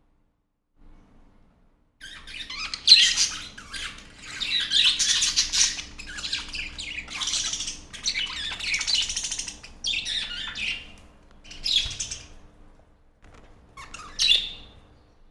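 A flock of budgerigars chirping together, starting after about two seconds of quiet and going in dense overlapping bursts with short gaps, thinning to a couple of single calls near the end.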